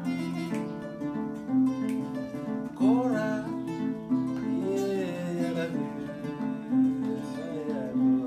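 Intro music with an acoustic guitar playing steady strummed and plucked chords, and a voice singing a few sliding phrases over it.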